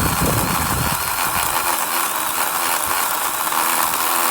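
Electric chainsaw running steadily at speed and cutting through a tree limb.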